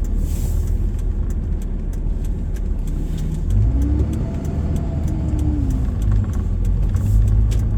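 Engine and road noise inside a vehicle's cabin while driving on snowy mountain roads: a steady low rumble with scattered light ticks.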